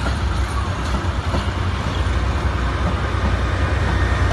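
Vintage railway passenger coaches rolling past at close range, their wheels rumbling steadily on the rails. The sound grows a little louder near the end as a diesel locomotive at the rear of the train comes by.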